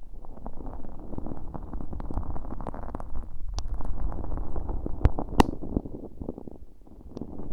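Earpick scraping through sticky, fairly firm slime mixed with fine holographic glitter, right against a bare ear microphone with no plastic-wrap cover: dense close crackling with a few sharper clicks around the middle, easing briefly near the end.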